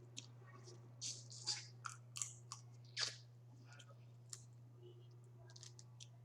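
Crawfish being eaten close to the microphone: a cluster of sharp wet clicks and crunches of shell and chewing in the first three seconds, then fainter, scattered smacking clicks, over a steady low hum.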